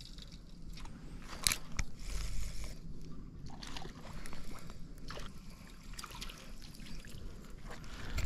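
Footsteps crunching through dry leaf litter, with rustling and handling of a spinning rod, heard as a run of irregular crackles and clicks.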